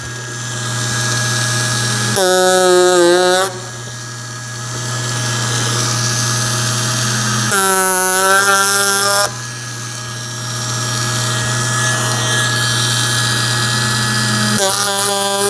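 Ryobi 4-volt cordless power carver buzzing as its straight chisel carves pine. Three louder spells of a higher, pitched buzz come about two, eight and fifteen seconds in, each lasting a second or two.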